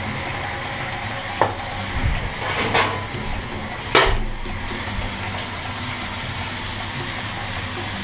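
Chicken pieces sizzling steadily in a frying pan. A utensil clicks and scrapes against the pan a few times as the pieces are turned, loudest about four seconds in.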